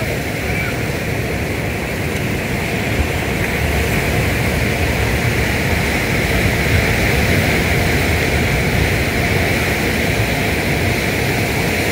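Steady rushing noise of sea wind buffeting the microphone over the wash of ocean surf, growing a little louder about four seconds in.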